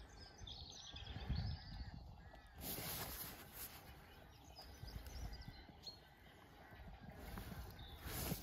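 Faint birdsong outdoors: a few small chirps in the first couple of seconds over a low, uneven rumble, with two short rushes of hiss, about three seconds in and near the end.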